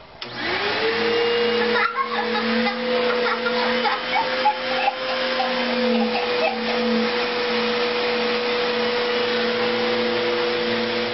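Vacuum cleaner switched on just after the start, its motor whine rising quickly to a steady pitch, then running steadily as the hose sucks up a little girl's hair to gather it into a ponytail.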